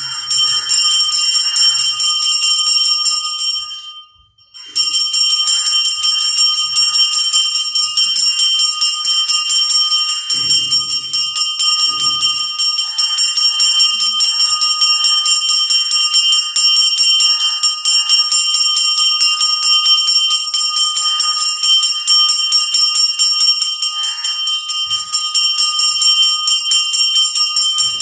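Temple puja bell ringing rapidly and continuously as worship is offered, with a brief break about four seconds in.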